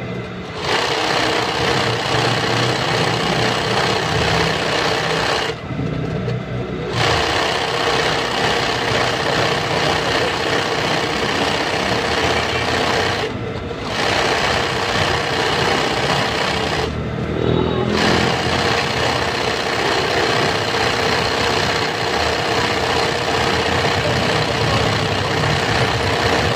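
Sewing machine stitching at high speed, freehand embroidery filling in black-thread lettering on fabric. It runs in long runs with three short stops: about five and a half seconds in, about thirteen seconds in and around seventeen seconds in.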